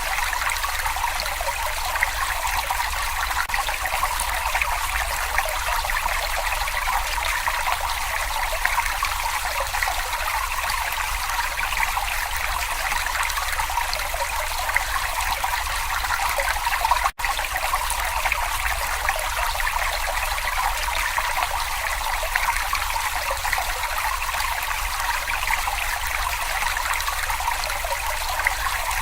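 Babbling brook: a steady trickling rush of running water, briefly cutting out for an instant about 17 seconds in.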